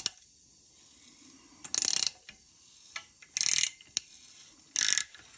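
Socket ratchet clicking in three short bursts of rapid pawl clicks, about a second and a half apart, as it is swung back between turns to undo an exhaust manifold nut on its stud.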